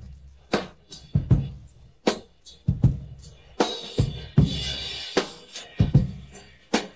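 A rock drum kit playing alone: spaced-out drum hits with deep, ringing bodies. A crash cymbal is struck about three and a half seconds in and rings for over a second.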